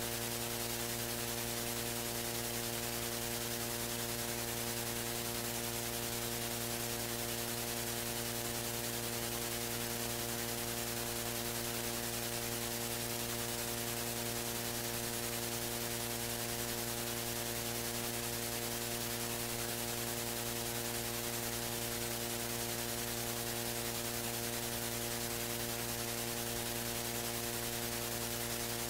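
Steady electrical mains hum, a low buzz under a layer of hiss, with no other sound standing out.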